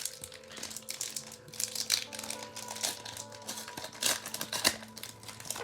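Foil Pokémon booster pack wrapper crinkling and tearing as it is opened and the cards are pulled out, with irregular crackles that are loudest about two seconds in and again near four seconds. Background music plays under it.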